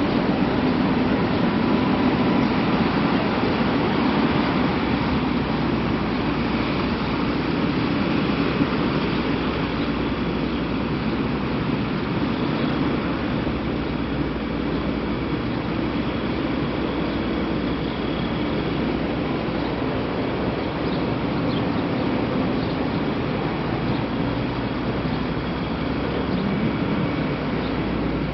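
Steady city street noise, mostly the hum of road traffic.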